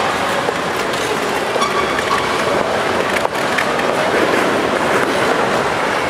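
Ice skate blades gliding and scraping over rink ice, a steady scraping hiss.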